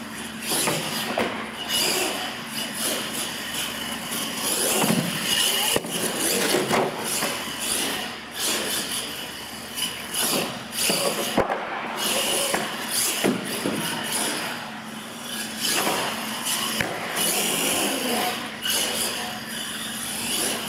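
Radio-controlled monster truck driving on a concrete floor, its motor and gears whining and surging with the throttle, with a few sharp knocks.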